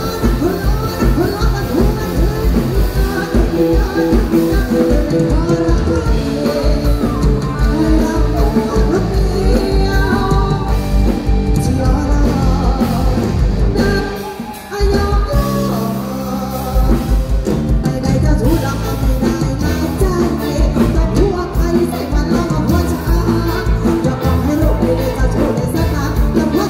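Live band music played loud over a PA, a woman singing into a microphone over a steady drum beat. About halfway through, the band drops out for about a second, then comes back in.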